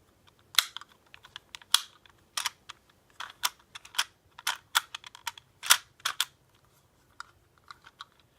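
Hard plastic clicks and clacks from a Beyblade Burst Dual Threat launcher being handled, its tab and parts snapping in and out. About a dozen sharp clicks come irregularly, then fade to a few faint ones near the end.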